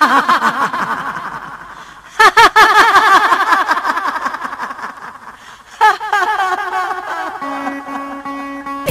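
Rapid, high-pitched laughter in three bouts, each starting loud and trailing off. A steady low tone comes in near the end.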